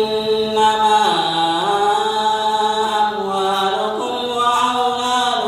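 Quran recitation in melodic tajweed style by a single voice, drawing out long held notes that slide slowly between pitches, with a dip in pitch about a second in.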